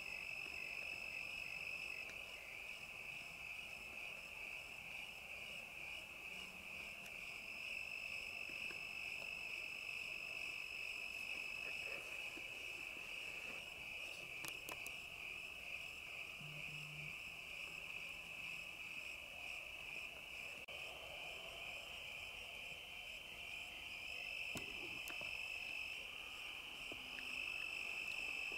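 Crickets trilling in a steady, high-pitched chorus.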